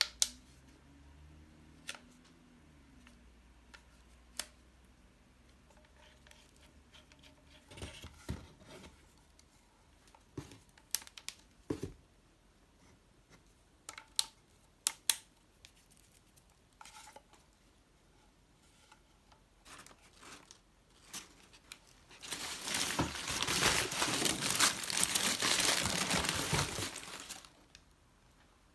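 Packing material being unwrapped by hand: scattered knocks and clicks, then about five seconds of loud crinkling and tearing near the end.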